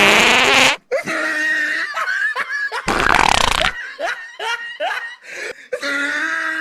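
Laughing in short chopped bursts, with a loud rasping fart-like noise lasting under a second about three seconds in.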